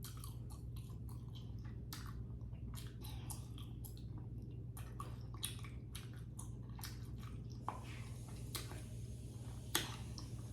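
Close-miked chewing of green-lipped mussel meat: soft, irregular wet clicks and smacks of the mouth over a steady low hum.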